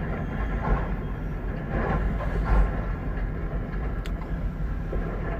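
Freight train of covered hopper cars derailing: a heavy, continuous low rumble with irregular louder crunching surges as the cars pile up, and a sharp click near the end.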